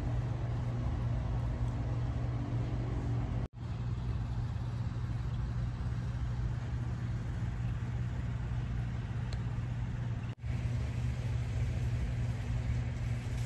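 Steady low mechanical hum, cutting out for an instant twice.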